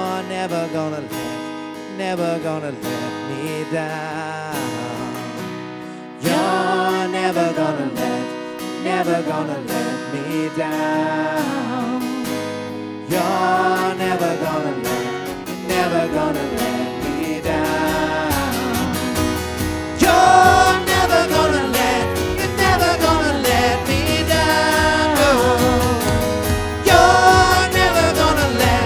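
Live worship music: acoustic guitar strummed under women singing a slow melody. About halfway through, a steady low beat comes in and the music grows fuller and louder.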